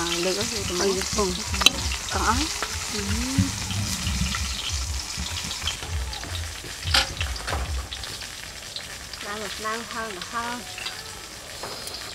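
Metal tongs and forks clicking and scraping on a plate as crispy fried chive rice cakes are torn apart and eaten, with a steady crackly crunching. There are a few short voiced murmurs near the start and again near the end.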